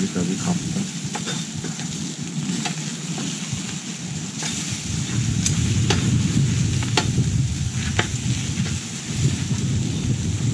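Food sizzling on a charcoal mangal grill, with scattered sharp pops and crackles over a low, fluctuating rumble.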